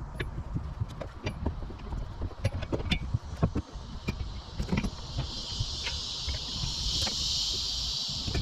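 Scattered light clicks and knocks of metal mounting hardware being handled on the truck bed, over a low rumble. A steady hiss swells from about five seconds in and fades near the end.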